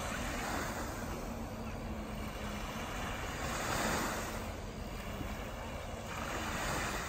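Steady rushing of wind and surf that swells three times, with the faint drone of a distant jet ski's engine running at speed.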